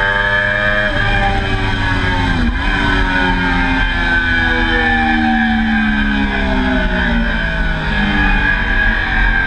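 Triumph Daytona sport-bike engine heard onboard at speed on a race track. The revs break about a second in and dip sharply and recover shortly after, then the engine pitch falls steadily for several seconds as the bike slows.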